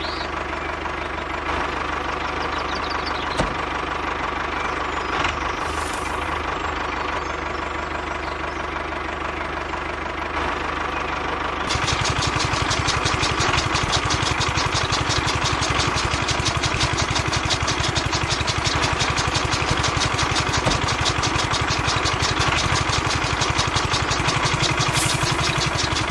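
A small electric motor in a miniature tractor runs steadily, belt-driving a model chaff cutter with a flywheel. About twelve seconds in, the sound gets louder and turns into a rapid, even clatter as grass stalks are fed in and chopped.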